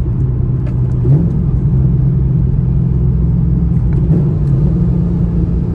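Cammed LS3 6.2 L V8 of a Camaro SS running through long-tube headers and the factory NPP exhaust, with a rumbling note. The revs rise a little about a second in and then hold steady.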